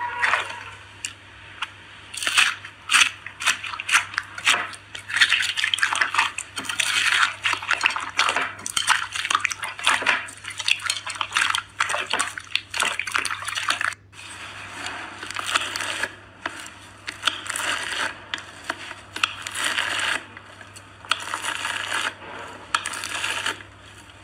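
Slime being squished and worked by hand, giving dense wet clicks and crackling pops in irregular clusters, with a brief break about halfway through.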